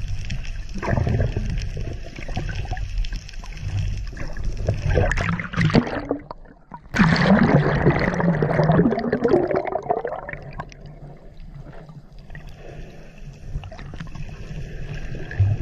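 Water movement and bubbling picked up by a camera underwater, with a louder rush of bubbling and splashing that starts suddenly about seven seconds in and fades over the next few seconds.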